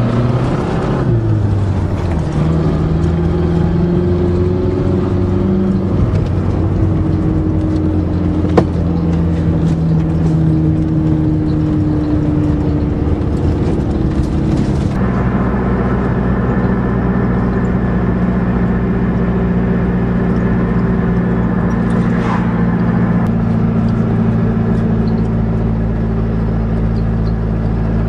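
Car engine of an Aries wagon running on the road while pulling a loaded trailer. Its pitch shifts up and down a few times in the first half, then holds steady from about halfway.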